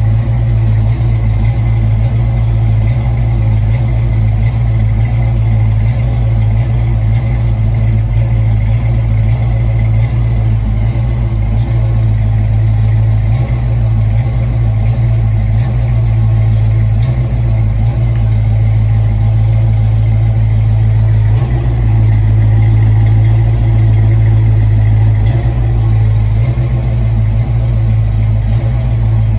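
Fox-body Ford Mustang engine idling steadily through the exhaust, warming up after a cold start.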